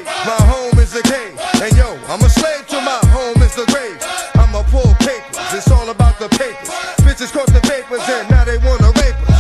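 Hip hop music: a voice rapping over a steady beat with heavy bass hits.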